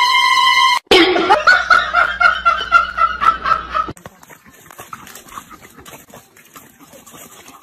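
A person laughing in quick, high, rapid bursts for about three seconds, after a steady high tone that cuts off just under a second in. Then only faint background noise.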